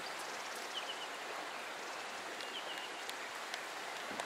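Bush ambience: a steady soft hiss, with short high chirps in twos and threes, several times over.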